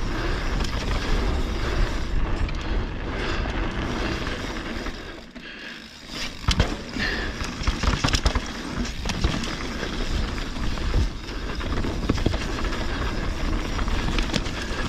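Mountain bike rolling fast down a dirt singletrack: a steady rush of tyre and air noise, with sharp knocks and rattles from the bike over bumps, several of them just after a brief dip about five or six seconds in.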